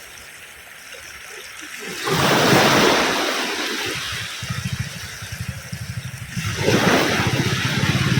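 Ocean waves breaking on a beach: a loud rush of surf about two seconds in that washes out over a couple of seconds, then a second wave breaking near the end. A low rumble runs beneath from about halfway in.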